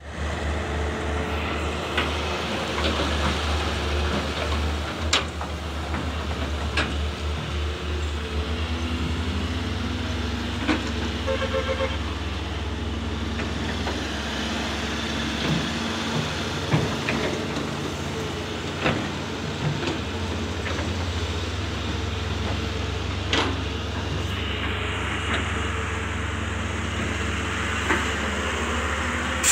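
Diesel engines of a wheeled excavator and a tracked hydraulic excavator running under load as they dig, a steady low drone with occasional sharp knocks and clanks every few seconds.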